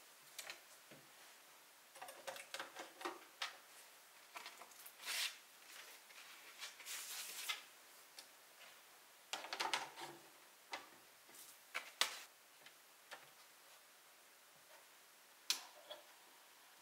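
Plastic clicks, knocks and brief rustles of a wooden-cased record player being handled: the clear dust lid lifted and lowered and a vinyl record laid on the platter. A sharp click near the end, as the knob is turned, is followed by a faint steady tone.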